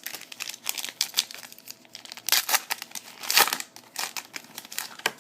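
A trading-card pack's foil wrapper crinkling and tearing as it is opened. The crackling comes in bursts, loudest about two and a third and three and a half seconds in.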